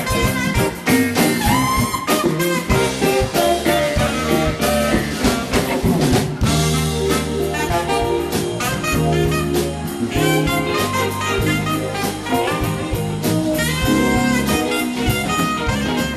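Live smooth-jazz band: a saxophone plays the lead melody over drum kit and electric bass, with keyboards and guitar filling in.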